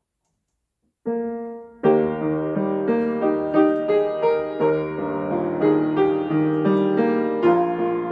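Piano playing the opening bars of a hymn accompaniment. After about a second of silence, one note rings and fades, then chords and a moving melody start just under two seconds in.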